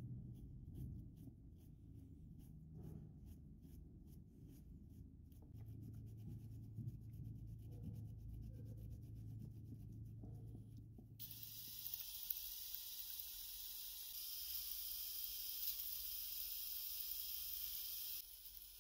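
A green scouring pad scrubbing a red plastic dynamo part over a tub of water: soft, quick rubbing strokes. About eleven seconds in, the rubbing gives way to a steady hiss.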